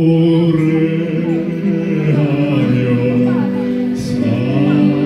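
A man singing a slow song in long held notes, with keyboard accompaniment.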